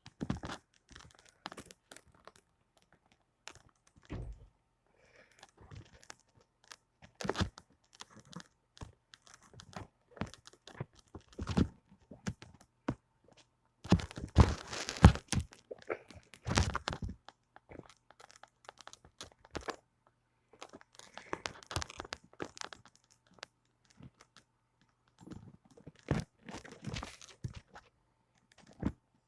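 Irregular knocks, thumps and scraping rustles of cats pawing and clambering at a television, in scattered bouts with a louder cluster about halfway through. A faint steady low hum runs underneath.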